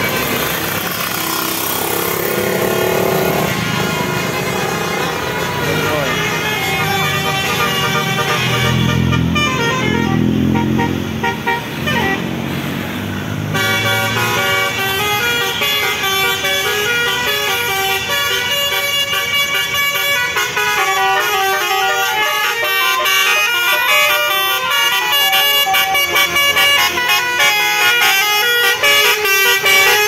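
Tour buses' 'telolet basuri' multi-tone musical horns playing tunes in quick stepped notes, thickest from about halfway on. A heavy bus engine rumbles past about a third of the way in, with people's voices mixed in.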